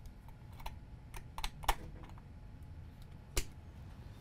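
Several sharp metallic clicks at irregular spacing from a CPU being seated in an LGA1151 socket and the socket's metal load plate and retention lever being pressed shut. The loudest click comes about one and a half seconds in, with another near the end.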